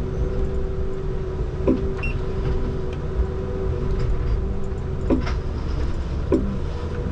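Komatsu 901 harvester heard from inside its cab: the engine runs steadily under a constant hydraulic whine, with three short knocks as the C93 harvester head handles the logs.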